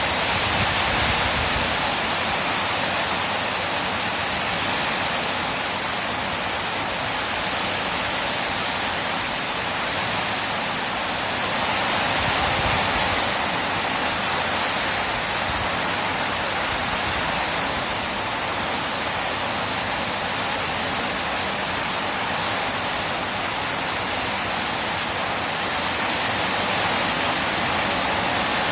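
Heavy rain from a rainstorm, falling steadily as a dense, even hiss that swells a little about twelve seconds in.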